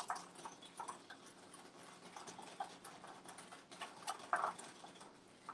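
Wire whisk tapping and scraping against a glass bowl in quick, faint, uneven clicks while vegan butter and sugar are creamed by hand.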